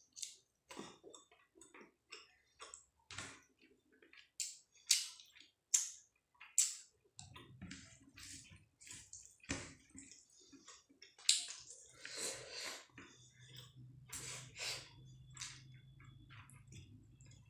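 Wet chewing and lip-smacking, then fingers squishing and mixing rice with fish curry and dal on a plate: short, irregular wet clicks and squelches.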